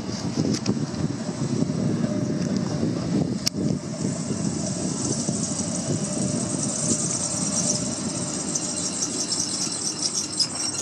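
PCC streetcar rolling along its rails toward a stop, a steady low rumble with a single click a few seconds in. A high hiss grows louder over the last few seconds as it pulls in.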